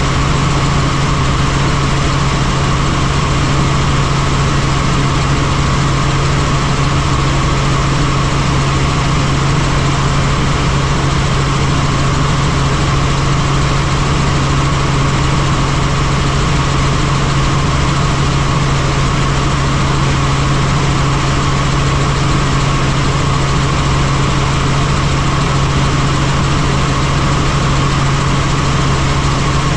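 Helicopter engine and rotors running steadily: a loud, constant drone with a strong low hum that does not change.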